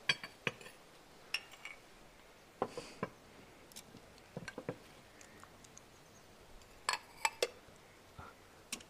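Light clinks and knocks of small household objects, such as crockery, being picked up and set down as a cluttered room is tidied: a dozen or so irregular, separate clicks with short pauses between them.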